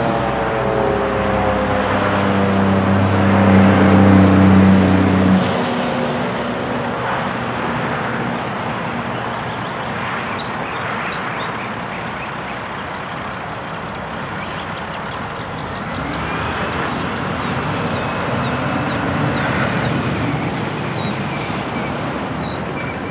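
Federal Signal 2001-SRN rotating warning siren winding down at the end of its test: two falling tones fade out over the first few seconds, over a low steady drone that cuts off about five seconds in. After that, steady road traffic noise, with a few bird chirps near the end.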